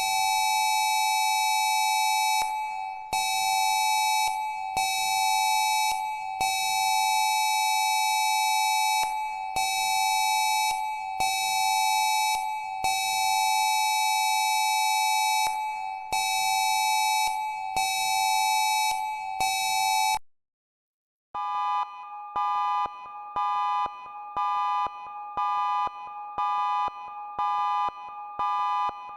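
Emergency alert attention signal: a loud steady two-pitch electronic alarm tone, briefly broken every second or two, that cuts off about 20 seconds in. After a second of silence a second electronic alert tone starts beeping in a fast repeating pattern.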